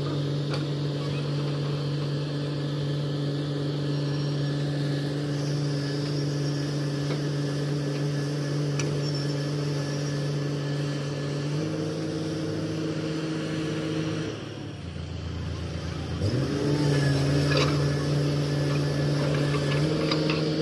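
Komatsu hydraulic excavator's diesel engine running under load as it digs soil, a steady hum that steps up in pitch partway through, drops lower for about two seconds about fifteen seconds in, then revs back up with a rising glide. A few light knocks.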